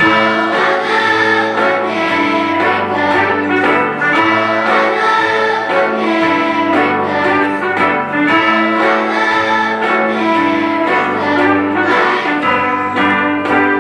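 Orchestral music led by strings, playing steadily and loudly as accompaniment for a children's stage number.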